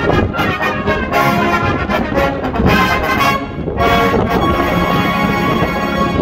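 A brass band of cornets, trombones and tubas playing, closing on a long held chord over the last two seconds.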